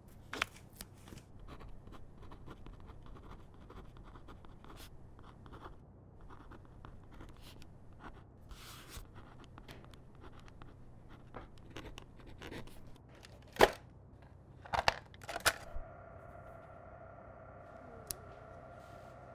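Light scratching and handling noises, then a few sharp clicks a little after halfway. After the last click a steady electrical hum starts and keeps going.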